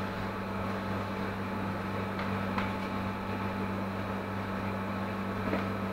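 Steady low electrical hum of kitchen machinery, with two faint light ticks about two and a half seconds in.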